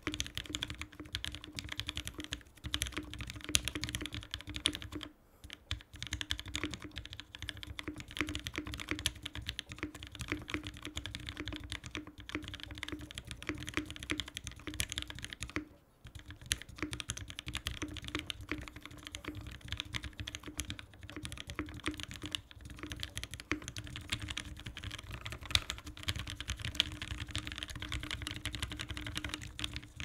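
Typing on an Iron165 mechanical keyboard with a brass plate and Gateron Black Ink V2 linear switches: a fast, steady stream of keystrokes, with short pauses about five and sixteen seconds in.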